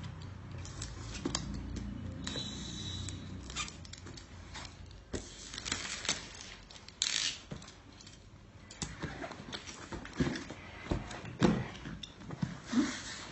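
Cardboard and plastic packaging being handled while a laptop box is opened: irregular clicks, knocks, scrapes and rustles, with a few sharper knocks near the end.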